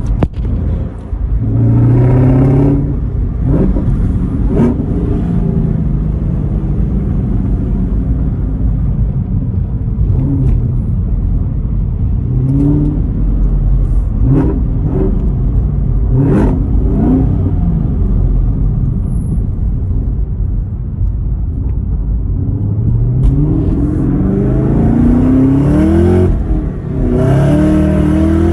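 2018 Chevrolet Camaro ZL1's supercharged 6.2-litre V8 on its stock exhaust, running with a low rumble and revved several times, the pitch climbing and falling. A longer run of climbing revs comes near the end.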